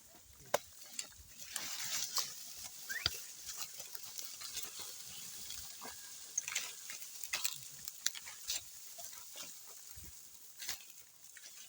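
Ox-drawn plough working a field: irregular clicks and scraping as the plough and the oxen move through the soil.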